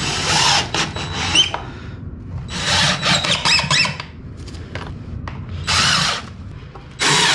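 Cordless driver running in four bursts of about a second each, driving screws into a plywood subfloor.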